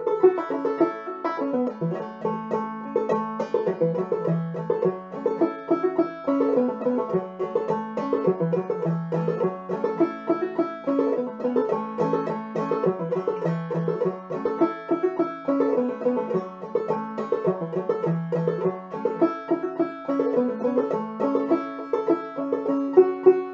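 Open-back banjo played clawhammer style in the key of A: a continuous old-time tune of steady, rhythmic plucked notes.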